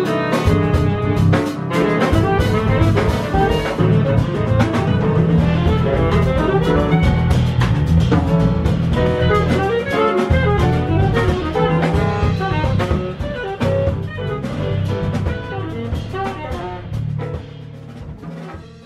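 A live jazz combo playing: saxophone leading over grand piano, electric bass and drum kit. The music fades out near the end.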